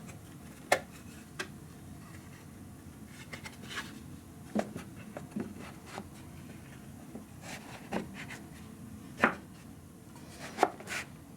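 Short pine pieces being handled and fitted into a wooden frame: scattered light wooden knocks and clicks at irregular intervals, the sharpest about a second in and twice near the end.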